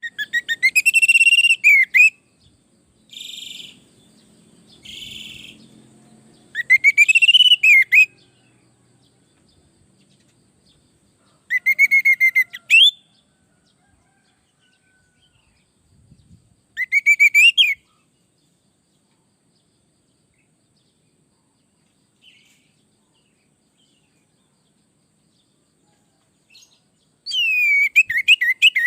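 Orange-headed thrush singing in short loud phrases of rapid repeated whistled notes, with pauses of several seconds between phrases. Two fainter, raspy calls come between the first phrases.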